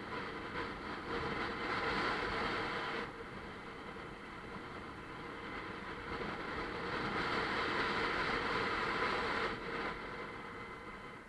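Bajaj Pulsar 150's single-cylinder engine running at road speed, with wind rushing over the microphone. The sound swells twice and drops off sharply, once about three seconds in and again near the end.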